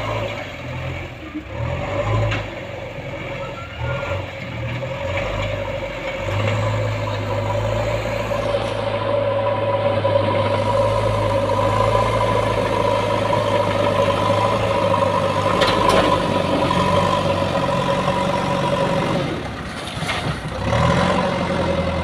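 JCB backhoe loader's diesel engine running under load as the machine works and drives, with a steady whine held over the engine from about six seconds in. The whine drops away briefly near the end, then comes back.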